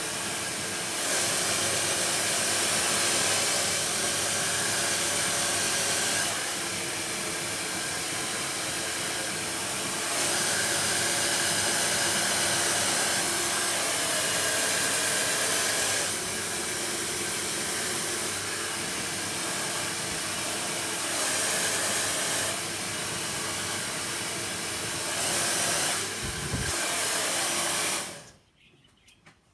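Lukso Mini Zero hair dryer blowing steadily while drying hair, its rush of air stepping louder and softer several times. It is switched off abruptly near the end.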